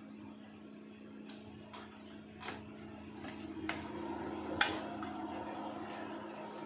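A handful of sharp clicks and taps from small parts and tools being handled on a workbench, over a steady low electrical hum and background noise.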